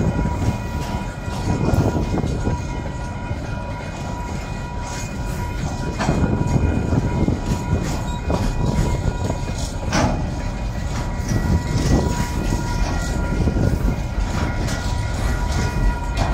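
KiwiRail container freight train's wagons rolling past at close range: a steady rumble of steel wheels on rail with clicks as wheels cross rail joints, the sharpest about six and ten seconds in. A steady high-pitched tone rings over the rumble throughout.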